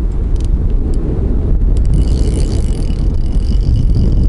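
Wind buffeting the microphone as a steady low rumble, with a few light clicks in the first half and a faint high steady tone from about halfway in.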